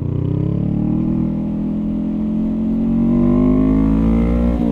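Honda Rebel 500's parallel-twin engine accelerating hard through one gear, its pitch rising steadily. Near the end an upshift makes the pitch drop suddenly.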